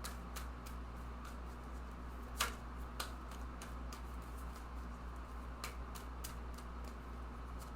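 Tarot cards being handled and laid out on a table: scattered light taps and clicks, one sharper tap about two and a half seconds in, over a steady low hum.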